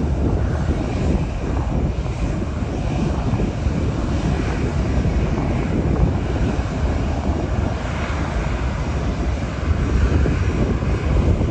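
Aircraft engines running: a steady deep rushing noise with a faint higher whine, as a plane moves at the airport.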